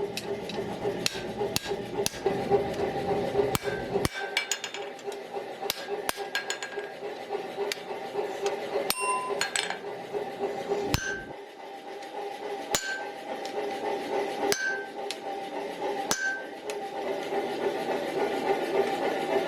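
Hammer blows on metal, irregular strikes each leaving a short metallic ring, thick at first and then a second or two apart, over a steady hum.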